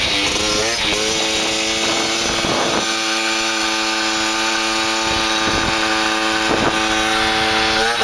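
Piaggio Ciao moped's new 50cc two-stroke engine with a 43 mm DEPS exhaust, running in on its first kilometres. The revs swing up and down in the first second, then hold steady and high while riding, and dip and climb again at the very end.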